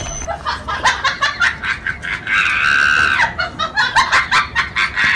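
Rubber screaming-chicken toy squeezed into one long squeal a little over two seconds in, amid quick bursts of a person's laughter.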